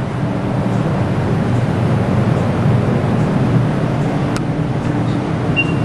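Steady low rumbling background noise, with a faint click about four seconds in and a short high beep near the end.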